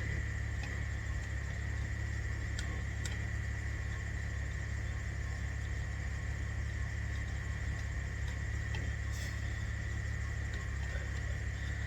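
A steady low hum with a few faint, short metallic clicks, twice close together early on and once near the end: an Allen key undoing the small screws that hold a wheel's centre cap.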